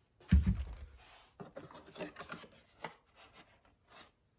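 Handling sounds from hand work on a steering wheel being patched with plastic filler: a dull thump near the start, then scattered light scrapes and small clicks.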